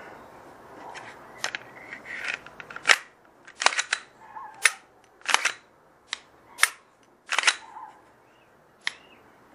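Sharp metallic clicks and clacks of a Glock 19 pistol being reassembled and worked by hand, about ten separate snaps a half to one second apart, the loudest about three seconds in.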